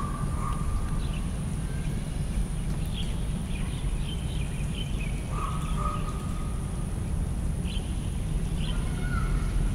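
Night park ambience: a steady low rumble under a continuous high-pitched insect drone, with a handful of short chirps and calls scattered through it.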